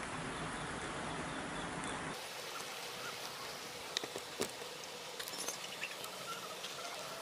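Corn kernels sizzling under a heated steel ball, a steady hiss. About two seconds in it cuts to a quieter stretch with scattered sharp ticks and cracks from the scorching kernels.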